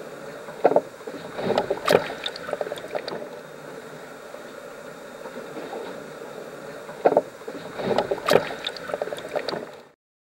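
Water sloshing and slapping in and around the flooded fuselage of a sinking Boeing 737, in irregular splashes over a steady hiss, with bursts about a second in and again about seven seconds in. Cuts off suddenly near the end.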